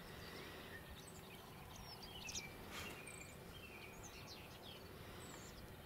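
Faint outdoor ambience with scattered short, high bird chirps and one short scratchy noise about three seconds in.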